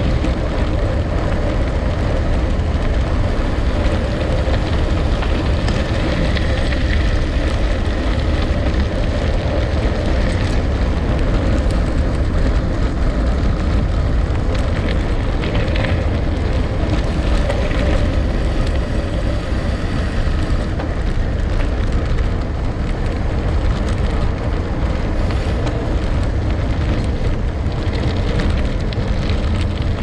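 Gravel bike being ridden: tyres rolling over the ground in a steady, unbroken noise with a heavy low rumble.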